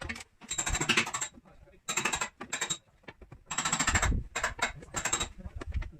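Rapid tapping on a car body panel during paintless dent repair, in three bursts of quick sharp strikes.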